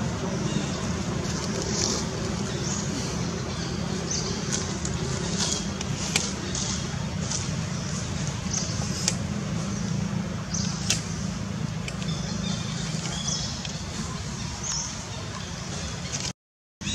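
Steady outdoor background noise: a low hum with scattered short, high clicks and chirps, cutting out briefly near the end.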